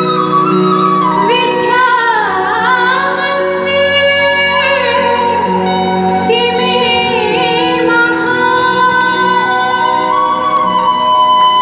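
Mixed choir singing a college anthem, several parts at once, holding long notes that waver slightly.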